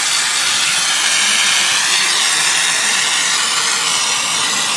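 Steady, loud hiss of an aerosol can of Würth expanding foam discharging.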